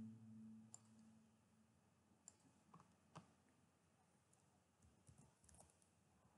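Near silence with a few faint, sharp computer mouse clicks and light keyboard keystrokes; the tail of a synth note dies away at the very start.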